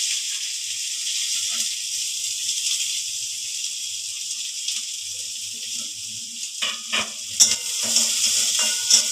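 Chopped onions sizzling in a pan of hot oil, just added to a tempering of cumin seeds and dried red chillies: a steady hiss. From about two-thirds of the way through, a spatula clicks and knocks against the pan as the onions are stirred.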